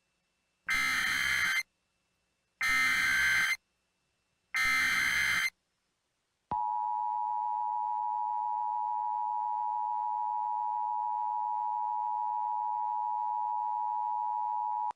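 Emergency Alert System tones. Three short bursts of SAME header data screech out, each about a second long with a second's gap between them. Then, about six and a half seconds in, the steady two-tone EAS attention signal begins and holds without a break, announcing that an emergency alert is starting.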